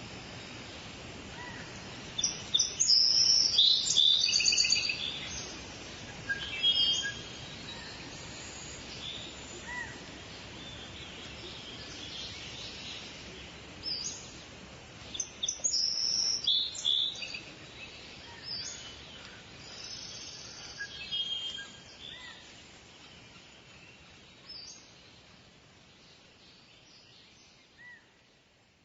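Forest ambience: several songbirds singing and chirping in bursts over a steady background hiss, the whole fading out toward the end.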